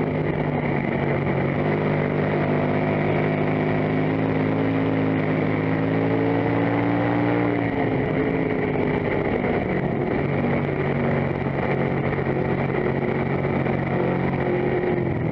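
Dirt-track race car's engine running hard, heard from inside the cockpit. The pitch climbs slowly for several seconds, drops off about eight seconds in, then steadies and builds again.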